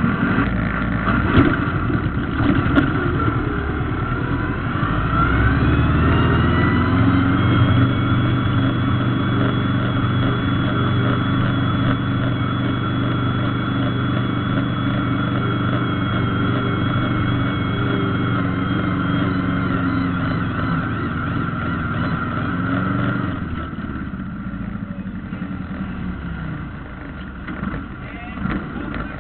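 Valmet 702 tractor's diesel engine, heard from inside the cab, revving up over a few seconds and then held at high revs under heavy load while pulling the sled. A whine runs along with it. Near the end the revs drop back as the pull finishes.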